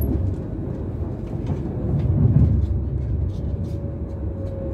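Cabin running noise of a class 390 Pendolino electric train in motion: a steady low rumble of wheels on rail with scattered clicks, swelling about two seconds in, and a faint steady whine coming in near the end.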